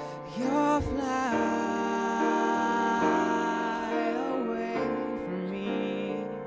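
Vocal jazz choir singing long held close-harmony chords that change every second or two, with one voice sliding in pitch about half a second in.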